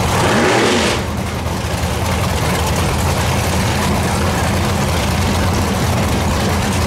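Chevy II Nova drag car's engine given one quick blip of the throttle in the first second, its pitch sweeping up and falling back. It then settles to a steady, low, rumbling idle as the car rolls slowly forward.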